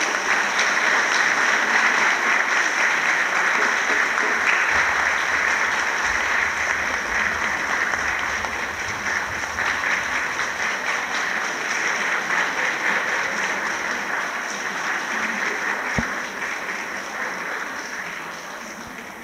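Audience applauding, slowly dying away toward the end.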